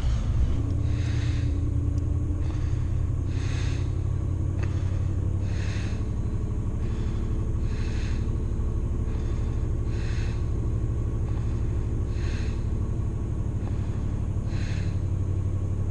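Engine of a 33-year-old car idling steadily with a low rumble. Slow breaths close to the microphone come about every two seconds over it.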